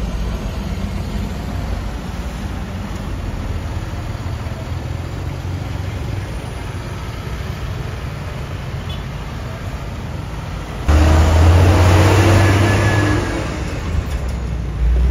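Road traffic dominated by bus engines: a steady low diesel rumble as a Hino RM280 tour bus pulls away. About 11 seconds in, the sound jumps abruptly to a much louder, deeper engine rumble of a bus and motorcycles moving close by.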